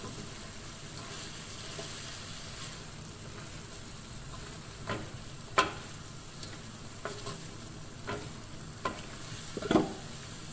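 Vegetables and chicken sizzling steadily in a hot wok while a wooden spatula stirs and scrapes them. In the second half the spatula knocks against the wok several times, the loudest knock near the end.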